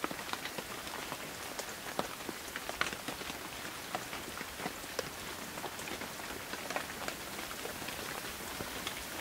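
Steady rain falling on wet cobblestones and into small puddles: an even hiss with individual drops splashing sharply here and there.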